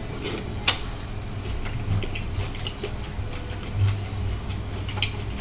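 Close-miked eating of sautéed shrimp: wet mouth clicks and smacks, two sharp ones in the first second, with soft low chewing thuds.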